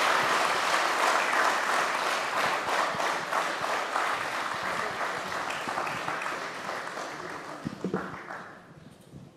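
A large roomful of people applauding. The clapping is dense at first, then thins out and fades away over the last few seconds.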